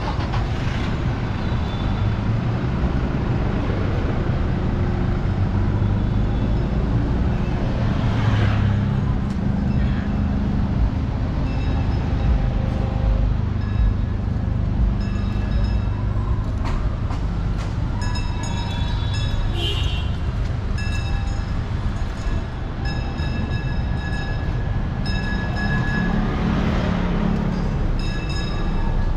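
City street ambience: motor vehicle engines running and passing, with a motorcycle going by close about three-quarters of the way through. From about halfway, high beeps repeat on and off over the traffic.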